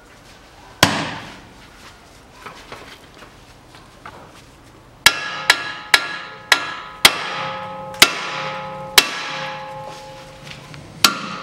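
Hammer blows on steel at the tie rod end joint of the steering knuckle, knocking the tie rod end's tapered ball stud loose with its nut left partly on. One ringing metal strike comes about a second in, then a run of about eight strikes from about five seconds in, each ringing briefly.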